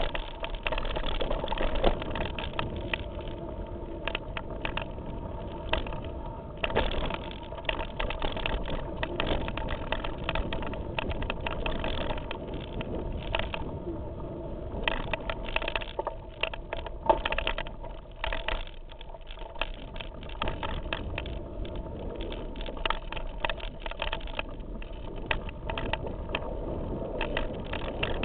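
Mountain bike rattling and clattering down a rough, rocky forest trail, heard from a camera mounted on the handlebars. There is constant tyre and trail noise, with frequent sharp knocks as the bike hits rocks and roots.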